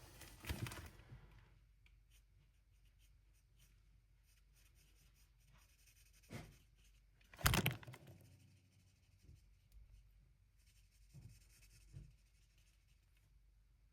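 Faint scratching of Stampin' Blends alcohol-marker tips coloring on cardstock, in short, irregular strokes. A few soft knocks break in, the loudest about seven and a half seconds in.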